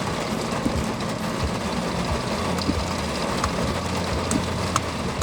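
Car driving on wet roads in the rain, heard from inside the cabin: steady road and tyre noise with scattered light ticks, and a low drone that sets in about two seconds in.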